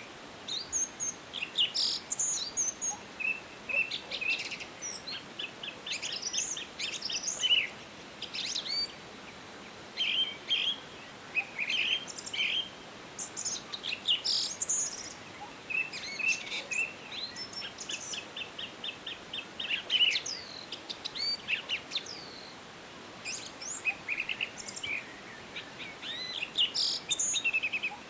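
Several songbirds singing and calling at once: overlapping chirps, whistled phrases and fast trills, over a faint steady background hiss.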